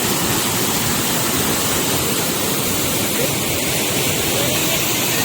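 Waterfall rushing steadily close by, a constant, unbroken roar of falling water.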